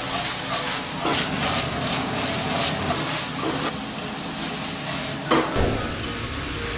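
Food sizzling in a hot frying pan on a gas stove, with irregular clinks and scrapes of utensils against the pan as the food is tossed and stirred.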